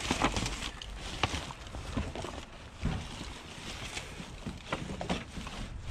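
Gloved hands shifting junk around in a trash bin: rustling of bags and fabric, with scattered light knocks and clatters as items and a thin metal frame are moved.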